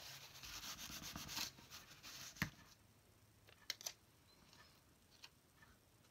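Soft rubbing and rustling of paper under the hands as a mushroom sticker is handled and pressed onto a paper card. A single knock comes about two and a half seconds in, followed by a few small clicks.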